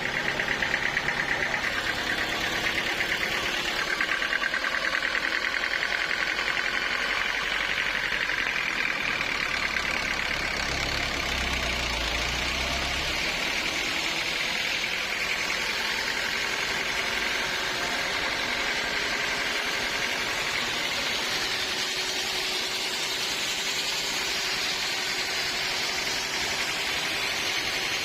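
Engine-driven sawmill machinery running steadily, with a high whine that drifts slightly in pitch.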